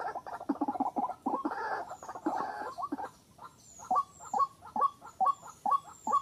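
White-breasted waterhen calling: a fast run of harsh clucking calls for about three seconds, then evenly spaced single calls, about two a second.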